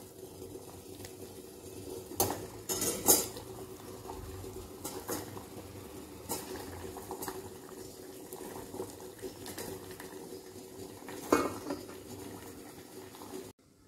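Sugar syrup boiling steadily in an aluminium pan, with rajbhog cooking in it, over a scattering of sharp metal clinks from a steel ladle against the pans. A louder clank comes near the end as a steel lid is set on the pan.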